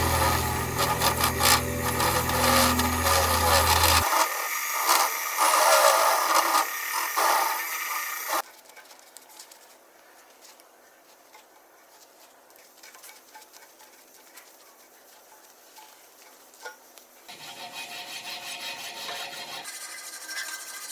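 Workshop tools scraping and rubbing on a sword part, with a motor humming steadily through the first four seconds. The scraping drops much quieter about eight seconds in and picks up again near the end.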